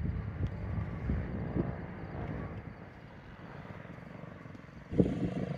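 Small dirt bike engine running as the bike rides toward the microphone, fainter through the middle and then jumping sharply louder with a steady engine note about five seconds in.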